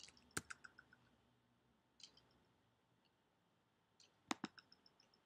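Computer mouse clicks over near silence: a sharp click about half a second in, a faint one about two seconds in, and two close together near the end, each followed by a quick run of faint ticks.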